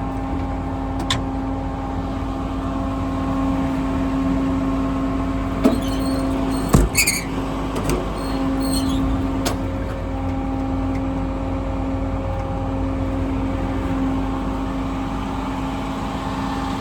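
Diesel engine of a service truck idling steadily with a constant hum. A few sharp metallic clanks come about six to nine and a half seconds in.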